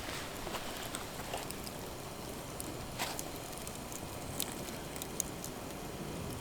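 Wood fire crackling: a few sharp, irregular pops and ticks over a steady low hiss.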